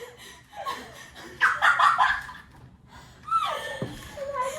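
Children snickering and laughing, with a gasp, in two bursts: one about one and a half seconds in and another starting past three seconds.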